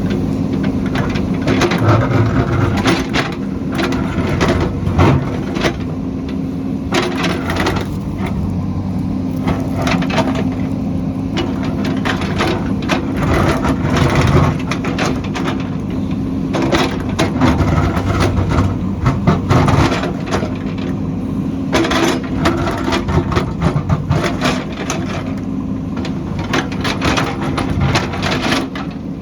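JCB backhoe loader's diesel engine running steadily under load while its bucket digs, with many irregular cracks and crunches of breaking soil and rock.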